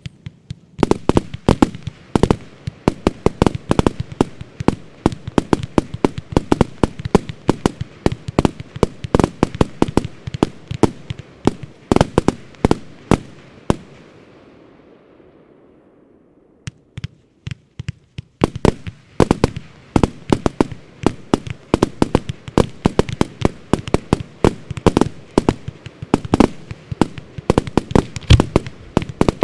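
Fireworks display firing: sharp launches and bursts come several to the second. About halfway through there is a pause of a few seconds in which a hiss dies away, then a second volley follows just as dense.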